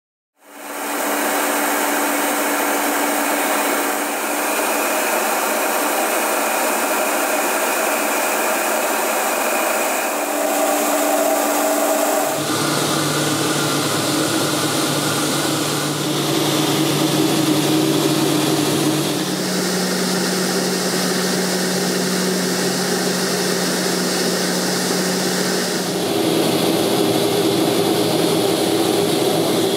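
Allison 250 turboprop and propeller of a light aircraft running steadily in flight, heard from the cockpit as a loud rushing noise with a held whine. It cuts in suddenly just after the start, and its pitch and tone jump several times.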